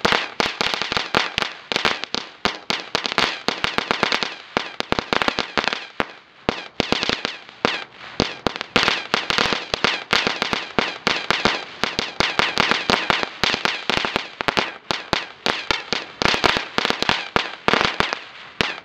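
Epic Fireworks Crazy Crickets, a small ground firework, burning with its gold crackle effect: a dense, continuous run of sharp crackling pops that keeps going, with a brief lull about six seconds in.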